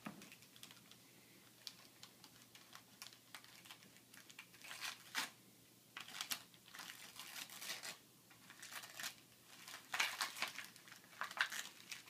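Gift wrapping paper being torn and crinkled by hand as a small present is unwrapped, in short, scattered bursts of rustling and tearing, with a few louder ones in the second half.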